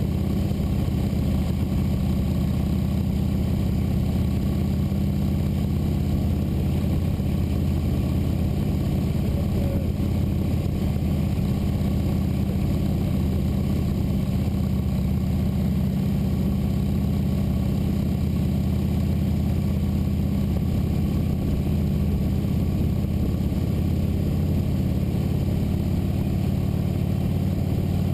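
Motorcycle engine running at a steady, unchanging speed.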